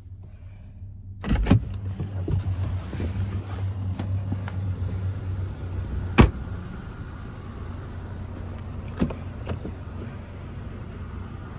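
A 2021 BMW X6's door being opened about a second in, with handling clicks and a rise of outside noise over a low steady hum, then the car's door shut with one loud thud about six seconds in, and two lighter clicks near the end.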